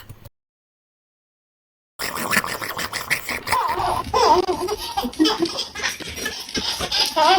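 A few seconds of dead silence, then a person laughing in wavering, rising and falling bursts over a noisy room.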